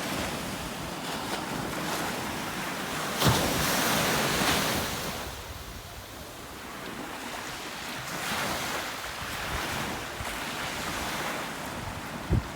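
Ocean surf washing on a beach, with wind blowing on the microphone. The waves swell loudest a few seconds in, ease off in the middle and build again, with a sharp knock about three seconds in and another near the end.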